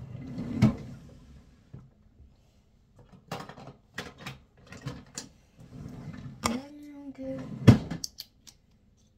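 Irregular knocks, clicks and handling clatter as small skincare bottles and items are picked up and moved about, with the sharpest knock near the end.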